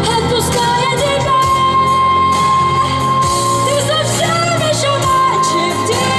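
Pop song passage with a high wordless vocal line over full band accompaniment; one note is held steady for about four seconds in the middle, with wavering pitch before and after.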